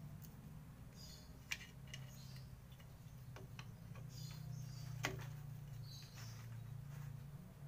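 Faint metallic clicks and scraping of a screwdriver prying at a drum brake shoe and its spring hardware: a few scattered clicks, the sharpest about five seconds in.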